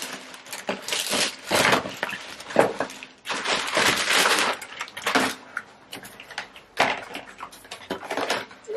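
White plastic mailer bag rustling and crinkling as it is pulled open and a cardboard shoebox is drawn out of it, in several irregular loud bursts.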